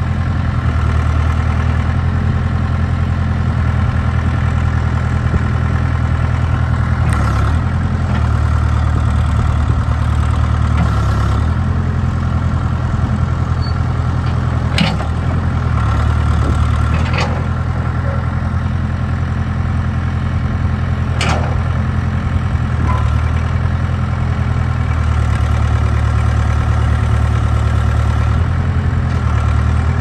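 Case 580K backhoe's four-cylinder diesel engine running, its note shifting up and down several times as the backhoe boom and bucket are worked. A few short sharp knocks sound over it.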